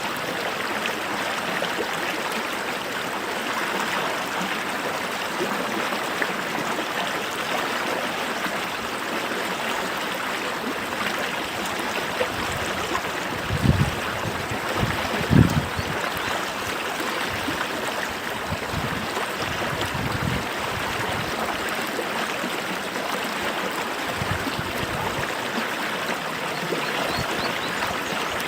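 A small stream flowing steadily, an even rushing babble of water. A few short low surges about halfway through are the loudest moments.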